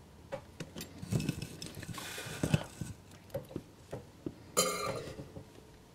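Workbench handling noises: a scatter of light clicks and knocks from tools and the model being handled, with a louder rustling knock about four and a half seconds in.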